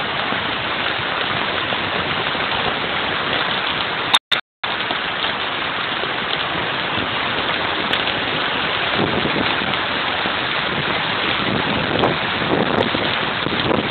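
Heavy storm rain pouring steadily, with wind gusts buffeting the microphone in the second half. The sound cuts out briefly about four seconds in.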